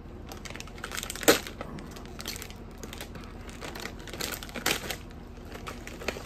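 A plastic potato chip bag being handled and pulled open: irregular crackles, the loudest about a second in and again near five seconds.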